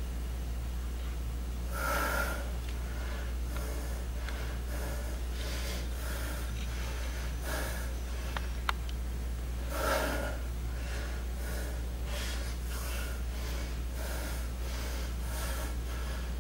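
A man breathing hard from exertion during lunges: short, forceful breaths every second or two, the loudest about two seconds and ten seconds in, over a steady low hum. A single sharp click about halfway through.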